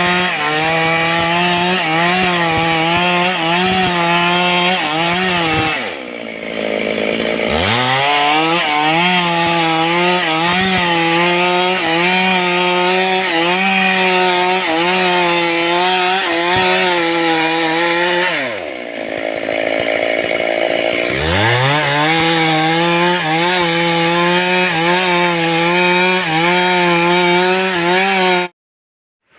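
Stihl two-stroke chainsaw running at full throttle, cutting through wood, its pitch wavering under load. Twice it drops back toward idle for a second or two and revs up again, and it cuts off suddenly near the end.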